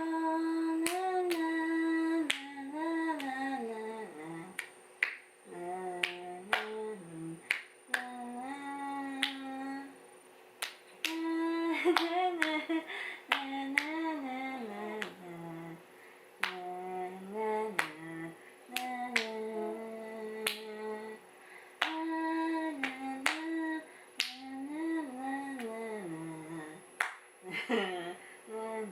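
A melody, hummed or sung without words, over a steady beat of finger snaps.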